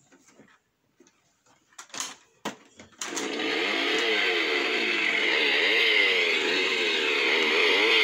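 A couple of sharp knocks, then a chainsaw starts running about three seconds in and keeps going, its pitch swinging up and down as it revs.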